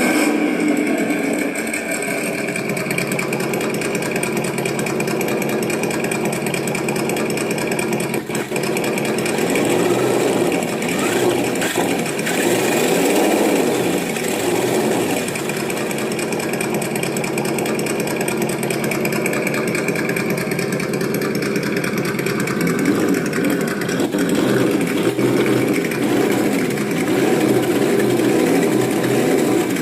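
ESS Dual sound module in a Himoto EMXT-1 electric RC monster truck playing a simulated engine sound through its loudspeaker. It runs continuously, with the pitch rising and falling in several revs about a third of the way in and again near the end, as the throttle is worked.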